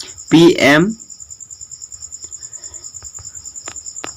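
Crickets chirping steadily in the background, a fast, even pulsing of high tones. A man says a short word near the start, and there are a couple of faint clicks near the end.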